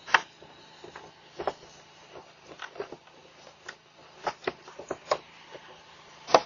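A dozen or so irregular sharp clicks and knocks, strongest just after the start and at the very end, over a steady low hum and hiss.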